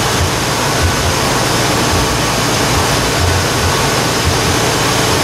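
Car engine running steadily with its added second alternator charging, heard close up as an even, noisy hum.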